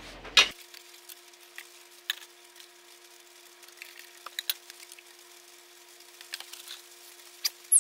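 Faint, scattered clicks and taps of epoxy mixing: a plastic resin jug and plastic measuring cups being handled and a wooden stir stick working in a cup, over a low steady hum, with a few sharper clicks near the end.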